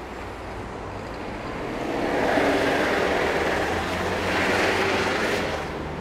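City street traffic: cars driving through an intersection over a steady low rumble of engines. The tyre and engine noise swells as vehicles pass close, loudest in two waves in the middle, then eases off near the end.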